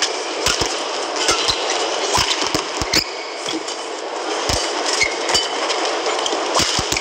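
Badminton rally: irregular sharp racket smacks on the shuttlecock mixed with thudding and squeaking footwork on the court, over a steady hum of arena crowd noise.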